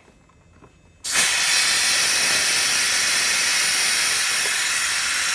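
Compressed air hissing out of a Makita AC460X air compressor's tank, starting suddenly about a second in and holding loud and steady.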